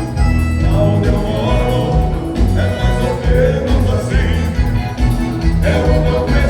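Live gaúcho dance-band music with singing over a steady bass beat.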